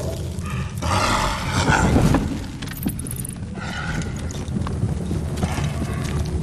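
Dramatic documentary soundtrack: a low rumbling drone under animal growls and roar-like effects, loudest between about one and two seconds in.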